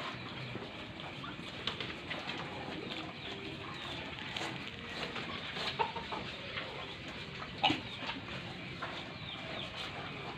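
Scattered short bird calls, perhaps from poultry, over a steady background hiss, with one clearer call about three-quarters of the way through.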